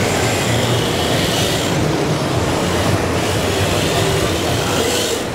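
Steady din of a busy exhibition hall: an even mix of crowd murmur and hall noise, with no single distinct event standing out.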